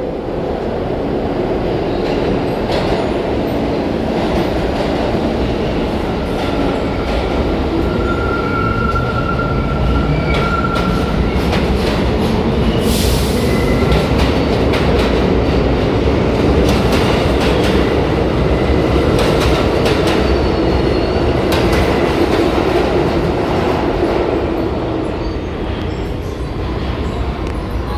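New York City Subway train running through the station: a steady heavy rumble with the clicking of wheels over rail joints. A thin wheel squeal comes in about eight seconds in and lasts a few seconds, followed by a short hiss.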